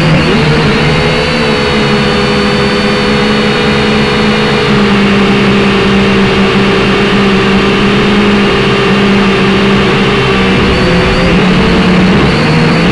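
A drone's motors and propellers whirring steadily, heard up close from the drone's own camera, as a loud hum with several overtones whose pitch wavers a little near the end as the rotor speeds change.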